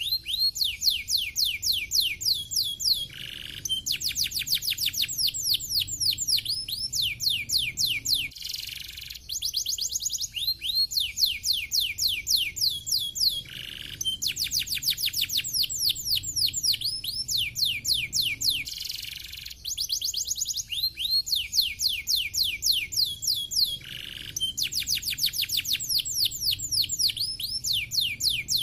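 Domestic canary singing: long fast trills of rapid downward-sweeping whistled notes, broken by short held notes, with the same song phrase coming round about every five seconds.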